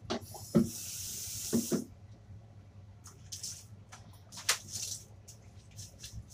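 Tap water running into a plastic cup at the sink for about a second and a half, with a couple of knocks of the cup, then a few short splashes as soapy shampoo water is poured over a wet dog's coat.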